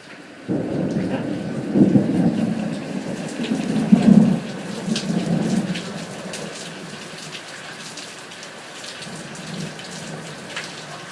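Rain falling steadily, with faint scattered drop ticks. A rumble of thunder comes in about half a second in, swells twice and dies away after about six seconds.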